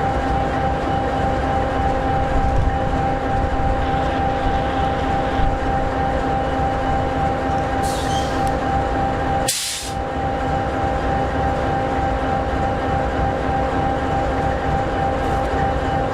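EMD 16-710G3B sixteen-cylinder two-stroke diesel of an SD60E locomotive idling steadily: a low rumble with a steady hum. Two short bursts of air hiss come about eight and ten seconds in, the second the sharper.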